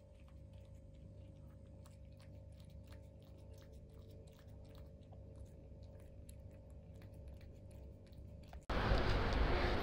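Tabby cat licking and chewing at leftovers in a ceramic bowl: a steady run of small wet clicks, a few a second. Near the end this gives way suddenly to loud, steady street noise.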